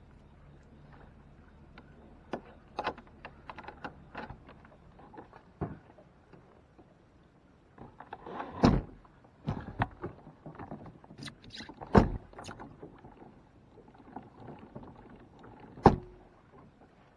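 Knocks, clicks and clatter of a kayak and its gear being handled at the water's edge, with three louder thumps spaced a few seconds apart in the second half.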